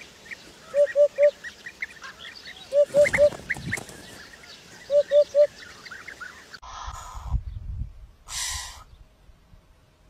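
Eurasian hoopoe singing its hollow "oop-oop-oop" song: three low, even hoots in quick succession, given three times about two seconds apart, with small birds chirping faintly behind. Near the end come two short bursts of noise.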